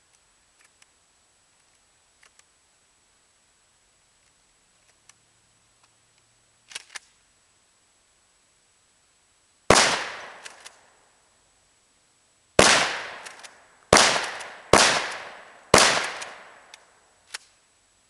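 A 12-gauge shotgun fired five times: one shot, then after a pause of about three seconds four more in quick succession about a second apart, each with a decaying echo. A few faint clicks come before the shots, and another follows them.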